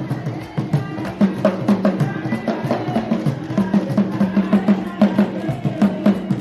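Music with a busy, steady drum and percussion rhythm.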